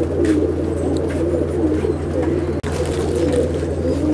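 A loft full of Andhra high-flying pigeons cooing, many birds overlapping in a continuous chorus of wavering coos, over a steady low hum.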